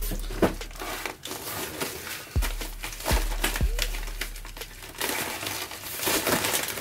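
Plastic bubble mailer crinkling and rustling in uneven bursts as it is handled and opened.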